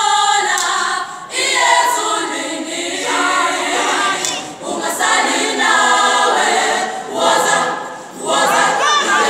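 Choir singing a cappella in phrases, with short breaks between them.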